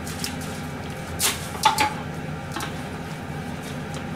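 Dishes and utensils in a kitchen sink being moved: a few short clatters and a clink that rings briefly, a little under halfway in, over a steady low hum.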